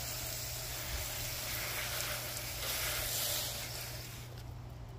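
Water spraying from a garden hose's pistol-grip nozzle onto garden beds: a steady hiss that thins out about four seconds in.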